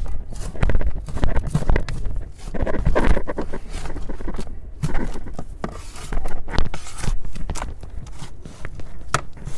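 Digging through potting soil at the bottom of a grow container: irregular scrapes, rustles and knocks as the soil is worked loose and the container's bottom is reached, with a sharp knock near the end.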